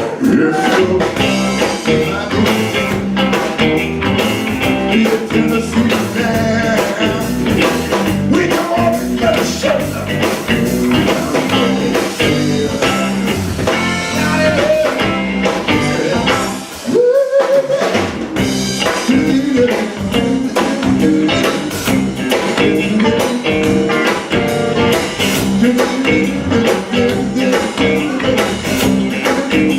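A band playing a blues-rock song with singing, electric guitar and drum kit, briefly dropping out for a moment about halfway through.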